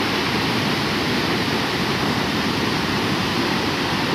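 Muddy floodwater rushing and churning over a flooded canal bank, a steady, unbroken rush of water.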